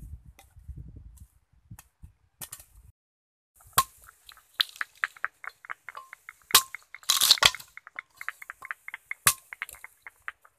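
Machete blade chopping into a wooden board to split it into strips: three loud, sharp chops a few seconds apart, with a rapid run of small clicks between them.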